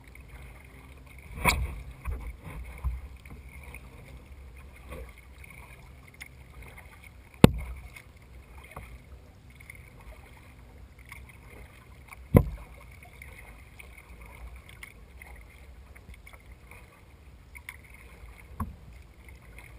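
Sit-in kayak being paddled on calm water: paddle strokes and water splashing and dripping, with two sharp knocks about seven and twelve seconds in.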